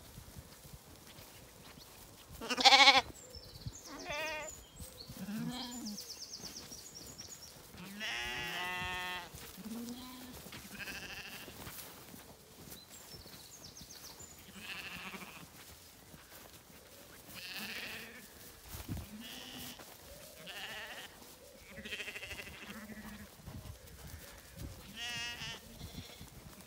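Zwartbles lambs and sheep bleating again and again, one call after another with short gaps, the loudest about three seconds in.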